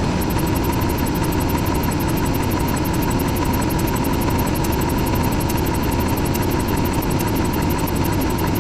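A steady, loud mechanical rumble like a running vehicle engine, with a faint steady tone and a fast fine ticking over it.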